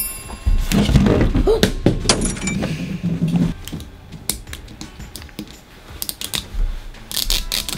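Plastic LOL Surprise toy ball being handled, with fingers picking at and peeling its sticker seal. It makes irregular crinkles and clicks of plastic.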